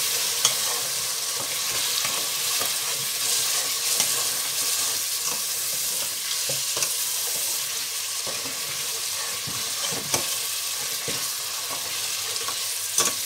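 Boiled mutton pieces sizzling in hot oil and onion-tomato masala in a stainless steel pot, stirred with a spoon that scrapes and clinks against the pot a few times: the meat is being bhuna, browned in the masala.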